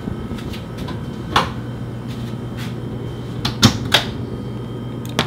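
A few sharp clicks and knocks of handling in a small room, over a steady low hum.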